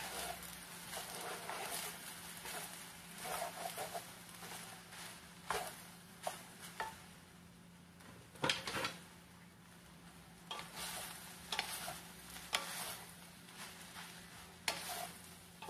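Wooden spatulas stirring and tossing fried rice with cabbage in a stainless steel pan, with irregular scrapes and knocks against the pan over a light sizzle; the sharpest knock comes about halfway through. A steady low hum sits underneath.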